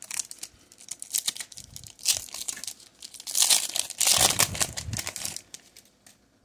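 Foil wrapper of a Pokémon trading card booster pack crinkling in the hands and being torn open, the loudest tearing and crackling about three to five seconds in.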